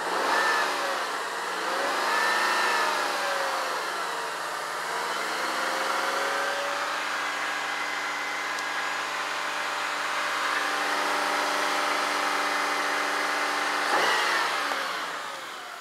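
Car engine revved twice, eased back to a steady fast idle, then revved once more near the end, while it charges a tractor's weak battery through jumper cables.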